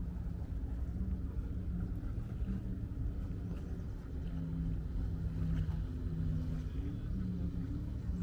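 Steady low rumble of a motorboat engine out on the river, with a wavering droning tone.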